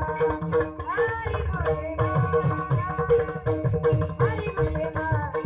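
Devotional singing in a boy's voice, with pakhawaj drum strokes keeping a steady rhythm and a constant drone underneath.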